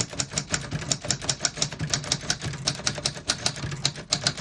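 A 1959 Royal Royalite manual portable typewriter being typed on: a fast, continuous run of key and typebar strikes, several a second.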